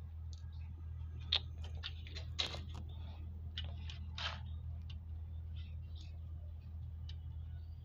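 Irregular small clicks and taps of metal tweezers against a multimeter's circuit board and plastic case while a tiny surface-mount resistor is positioned, mostly in the first five seconds, over a steady low hum.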